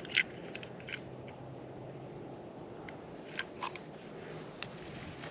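Light clicks and taps of hands handling a scale and a small catfish while it is weighed, about five in all, over steady low background noise.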